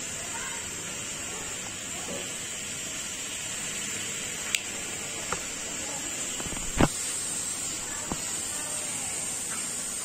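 Arashi AR-228 mini ceiling fan running, a steady hissing whir of motor and blades, broken by a few sharp clicks, the loudest about seven seconds in.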